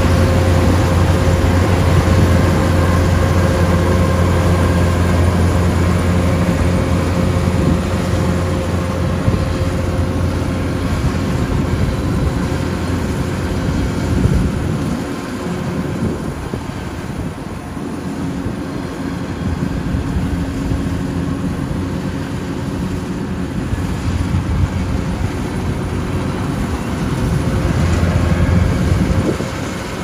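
Kubota rice combine harvester running steadily while cutting rice: a continuous engine drone with a low hum. It drops in level about halfway through and swells again near the end.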